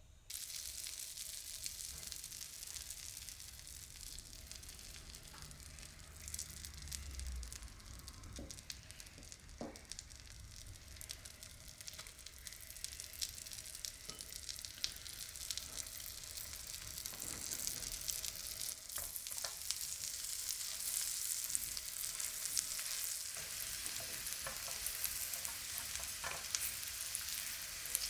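Food sizzling in a frying pan: a steady frying hiss that starts suddenly and slowly grows louder, with scattered light clicks and pops.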